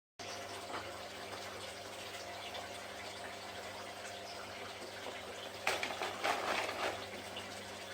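Water sounds: a steady liquid hiss, turning louder and rougher for about a second around six seconds in.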